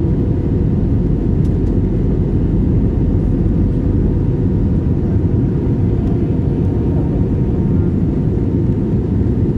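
Steady cabin noise inside an Airbus A320 during its descent: a loud, even rumble of engine and airflow, with a faint steady tone above it.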